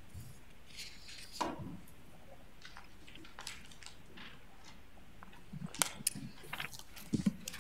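Quiet room tone with scattered faint clicks and paper rustling, getting busier in the last two seconds.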